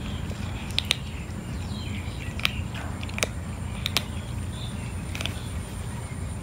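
Cat crunching dry kibble: irregular sharp crunches, about seven of them, over a steady low background rumble.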